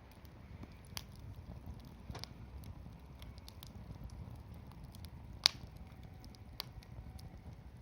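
Wood campfire crackling, with sharp pops at irregular intervals, the loudest about five and a half seconds in, over a low steady rumble.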